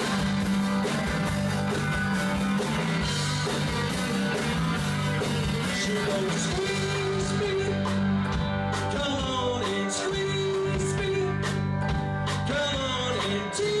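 Rock band playing live: a singer's voice over electric guitar, bass and drums.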